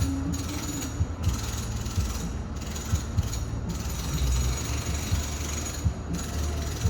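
Home renovation work heard from a distance through the house: a steady low rumble with irregular knocks, and a higher hissing noise that stops and starts several times.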